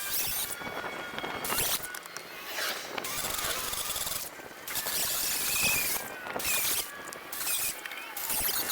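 Angle grinder with a cutting disc slicing through a steel body panel, a high hissing squeal that comes in repeated bursts of about a second with short breaks between cuts.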